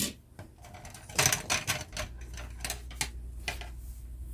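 Styrene plastic parts trees (sprues) of a scale model car kit being handled: a sharp click at the start, then a run of irregular light clicks and rattles of plastic on plastic.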